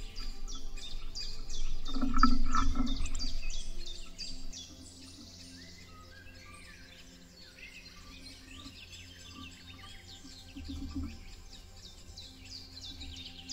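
Spring woodland birdsong chorus, many birds chirping and whistling at once. About two seconds in, a low rumble rises for a couple of seconds and then fades.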